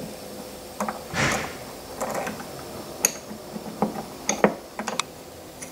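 Small parts being handled during assembly: scattered light clicks and knocks as screws and an end plate are fitted to a ball screw's bearing block, with a short rubbing scrape about a second in.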